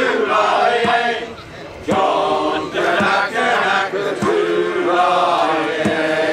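A group of men singing a sea shanty together in chorus, with a steady beat about once a second.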